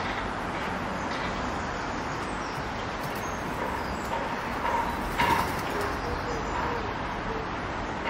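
Faint garden bird calls over a steady background hiss, with a run of low, curved call notes repeating in the second half. A brief rustle or bump about five seconds in.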